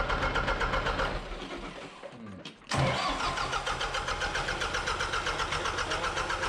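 Diesel engine running with a steady pulsing beat, dying away about a second in. Just before three seconds it is running again, coming back in abruptly and running steadily.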